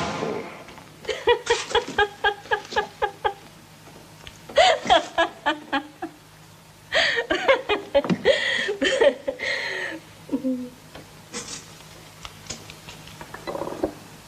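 A person laughing in several runs of quick "ha-ha" pulses, about four a second, with short pauses between the runs.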